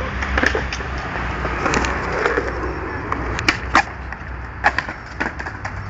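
Skateboard wheels rolling over concrete, broken by several sharp clacks of the board hitting the ground as the skater pops and lands an ollie off a ledge. The loudest pair of clacks comes about three and a half seconds in.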